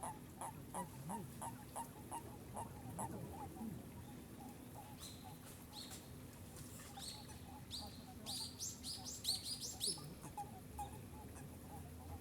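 Frogs calling in spring: short honking calls, about three a second for the first few seconds, then fainter and sparser. From about five seconds in, a run of quick, high, rising chirps joins them.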